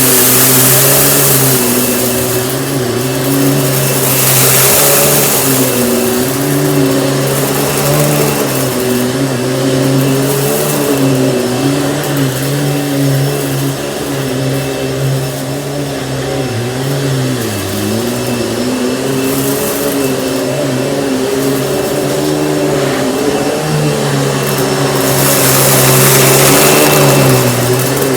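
Panasonic upright vacuum cleaner running. Its motor hum wavers up and down in pitch, and the airflow rushes louder near the start, about four seconds in, and again near the end.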